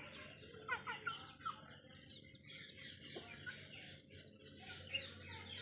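A flock of desi (country) chickens calling: many short, overlapping clucks and chirps, with a few louder calls about a second in and near the end.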